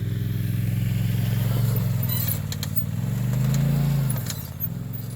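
Vehicle engine running steadily; about three seconds in its pitch swells up and then falls back.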